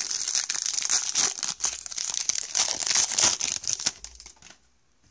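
Wrapper of a retail baseball card pack being torn open and crinkled: a dense crackle of many small clicks for about four seconds, then it dies away.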